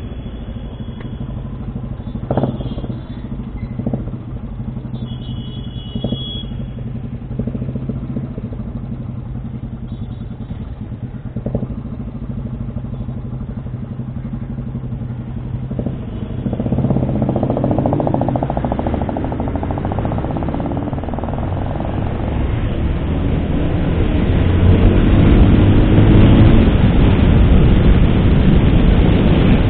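Motorcycle engine, a Suzuki Hayabusa inline-four, running steadily at low speed with a few sharp knocks. About halfway through, the bike pulls away and rides. Engine and wind noise build up and are loudest near the end.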